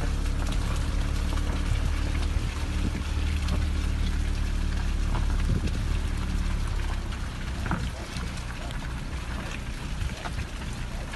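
A motor running with a steady low hum that drops away about three quarters of the way through, over a constant hiss with scattered small clicks.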